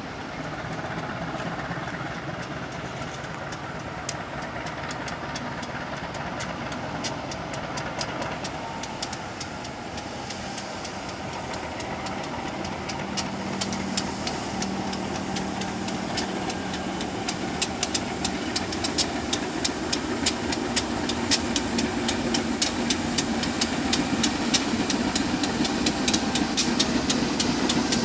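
Engine of railway track-repair machinery running steadily. Sharp metallic clicks and knocks come more and more often over the second half.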